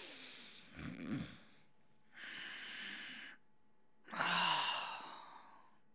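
A man breathing heavily as he wakes in bed: long, noisy breaths with a short grunt about a second in, and a loud, long sigh starting about four seconds in.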